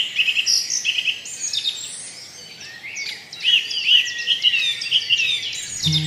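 A chorus of forest birds calling over one another: quick repeated chirps and short rising and falling whistles. Music comes in near the end.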